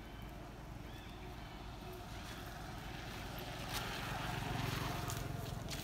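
A motor vehicle's engine passing by, growing louder from about four seconds in, over a steady low hum.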